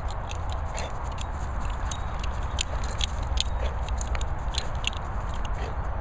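Irregular light metallic jingling ticks, typical of a dog's collar tag shaking as it moves, over a steady low rumble of wind on the microphone.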